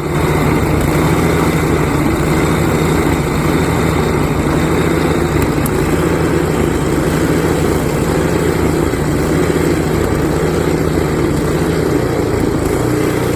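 Small gasoline snowblower engine running steadily, rising to full level right at the start.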